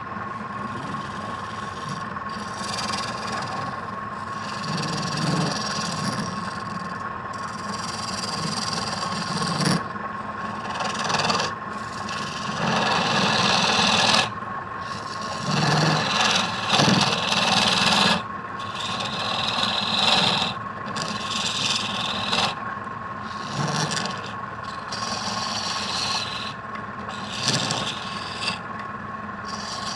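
Wood lathe running with a steady high whine while a hand tool cuts and scrapes the spinning wood in repeated passes of a second or more each, with short breaks between them.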